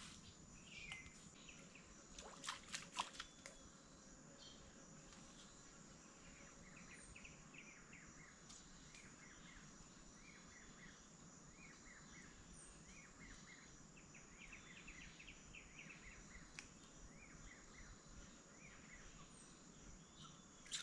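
Faint creekside ambience: a steady high insect drone throughout, with many quick, high bird chirps through the middle. A few sharp taps about two to three seconds in.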